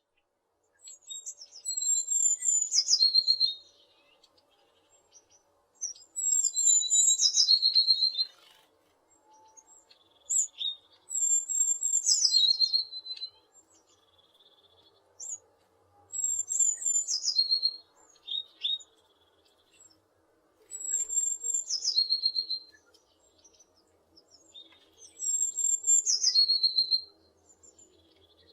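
A tit singing: six repeated song phrases, each about two seconds long and four to five seconds apart. Each phrase starts with high notes and ends in a fast trill, with a few short single calls between phrases.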